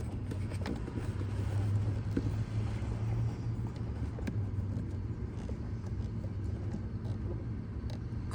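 Steady low hum of a running vehicle, with scattered small clicks and rattles of plastic parts and a connector being handled.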